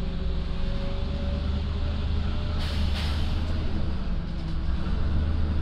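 Iveco EuroRider city bus running under way, heard from inside the passenger cabin: a steady low drone from the engine and driveline, with a faint whine that rises slightly and fades in the first couple of seconds. About two and a half seconds in comes a short hiss.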